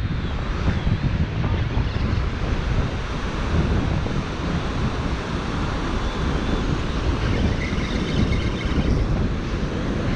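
Strong wind buffeting the microphone, over the steady wash of ocean surf breaking on the shore.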